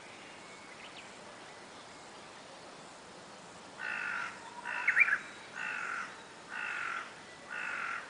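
A crow cawing five times, about once a second, starting about four seconds in. A brief sharp high note between the first two caws is the loudest moment.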